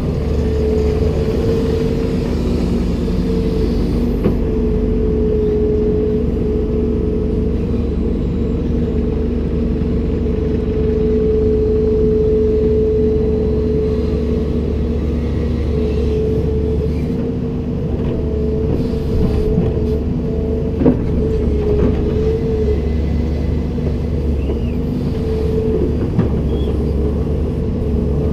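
Komatsu PC290-10 excavator's diesel engine running steadily under load, a low rumble with a constant whine over it. A few short knocks, the sharpest about three quarters of the way through.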